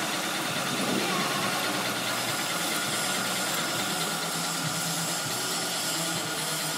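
Prewound bobbin winding machine running steadily, winding thread onto a row of bobbins on its spindle: an even machine hum and whir.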